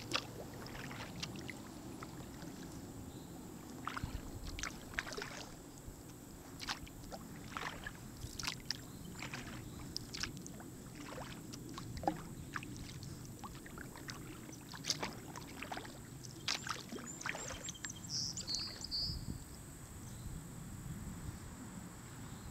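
Sea kayak being paddled on calm water: irregular light splashes and drips as the paddle blades dip in and lift out, over a low steady background rumble.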